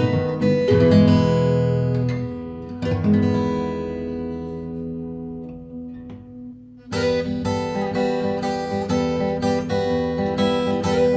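Instrumental acoustic guitar music: strummed chords ring out and slowly fade, then steady rhythmic strumming starts again about seven seconds in.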